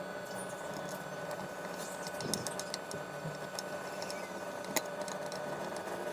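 Screwdriver tightening the screws that clamp a power amplifier IC to its heatsink: faint scattered clicks and scrapes, with one sharper click about five seconds in, over a steady faint hum.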